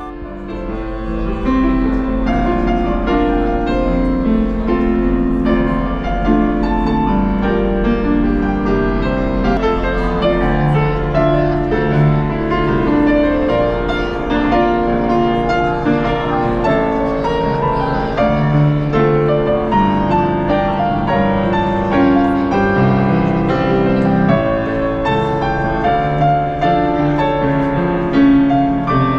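Grand piano played continuously, a flowing tune of many overlapping sustained notes over chords, with a steady low hum underneath.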